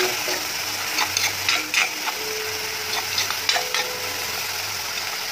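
A metal spatula stirring and scraping a thick fermented-fish chutney paste in a black kadai over a steady sizzle of frying. Two bursts of scraping come about a second in and about three seconds in.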